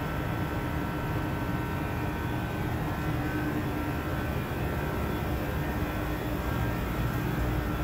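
Steady mechanical drone of an industrial air-handling unit's fans running, with a few steady hum tones over a constant rush of air.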